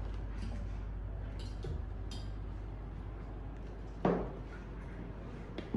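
Spoons and cutlery clinking against china plates and bowls as people eat, with a light ringing clink about two seconds in and a louder knock about four seconds in, over a steady low hum.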